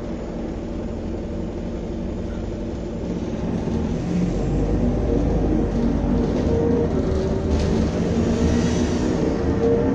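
Optare Solo M950 single-deck bus heard from inside the saloon: its diesel engine runs with a steady low drone and grows louder about four seconds in.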